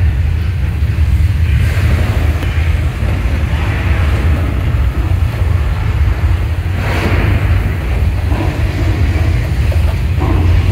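Staged earthquake special effect: a loud, steady deep rumble, with a short rushing burst about seven seconds in.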